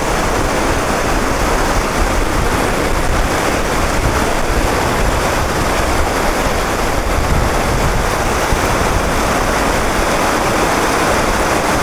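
River water rushing over rocks and rapids in a steady, loud, unbroken rush.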